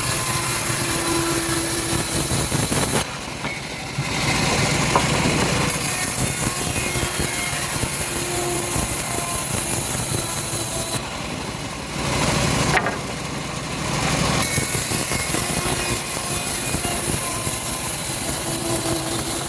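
Homemade engine-powered bandsaw mill running and sawing a teak log, a steady mechanical din that drops briefly about three seconds in and again around eleven to thirteen seconds in.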